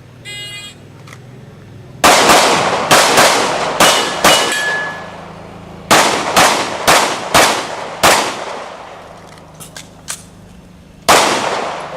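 A short electronic shot-timer beep, then eleven pistol shots: a string of five, a short pause, five more, and a single last shot near the end. After one shot in the first string, a steel target briefly rings.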